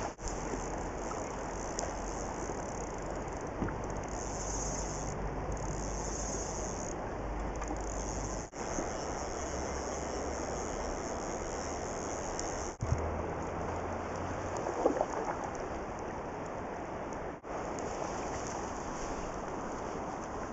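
Steady hiss of water, with no clear pitch, dropping out briefly three times.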